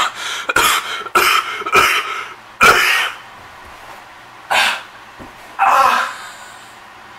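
A man's voice making a series of short, loud, breathy outbursts, six in all. The loudest comes about two and a half seconds in.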